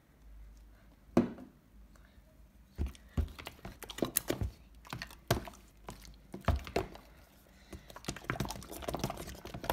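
Clear slime stirred fast in a plastic tub, giving a run of irregular sticky clicks and wet pops that starts about three seconds in, after a single sharp click about a second in.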